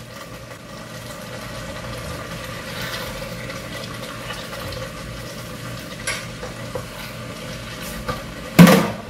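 A wooden spoon stirring chicken curry in a nonstick pot over the heat, with a steady low sizzle from the cooking sauce and a few light clicks. A single sharp knock comes near the end.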